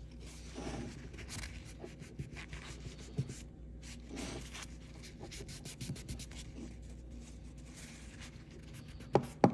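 Cloth rubbing and scratching in short, uneven strokes as a rag wipes excess paint fill off an engraved pistol slide. Two sharp knocks near the end are the loudest sounds.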